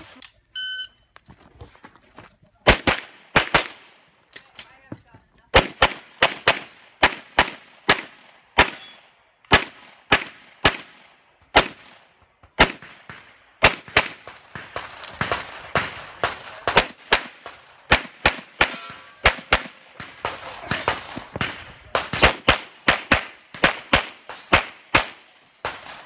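An electronic shot timer gives one short beep, then a Glock 35 pistol in .40 S&W fires rapid strings of shots, mostly in quick pairs and short bursts with brief pauses between them, through practical shooting stages.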